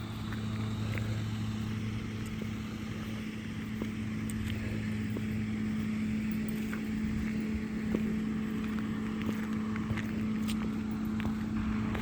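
Utility truck's engine idling steadily, a constant low hum, with a few faint clicks over it.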